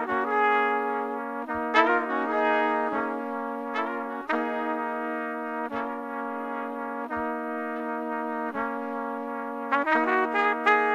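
Instrumental music: a held low drone under long sustained notes that change every second or two, with a run of quicker, shorter notes near the end.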